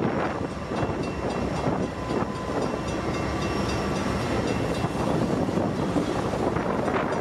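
Double-stack intermodal freight train rolling past close by, right after its lead diesel locomotives: a steady rumble and clatter of steel wheels on the rails under the container well cars.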